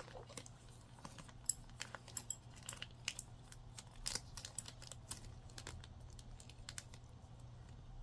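Faint, irregular crinkles and small clicks of a plastic sauce packet being squeezed out by pulling it between metal chopsticks.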